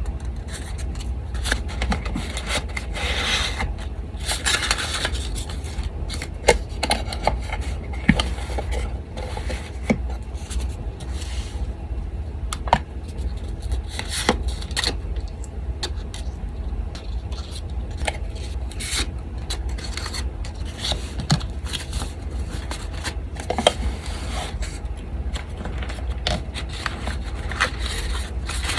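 Paper being handled at a desk: rubbing and scraping strokes with many small clicks and taps, over the steady low hum of an electric fan.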